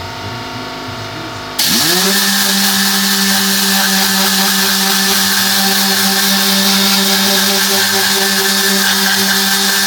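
An electric motor of car-cleaning equipment switching on about a second and a half in, winding up quickly to a steady whine under a strong rushing hiss of air.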